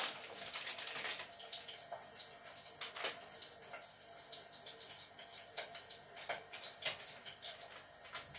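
Plastic food wrapper crinkling and rustling in the hands as a pack of cottage cheese is unwrapped, with a few sharper crackles.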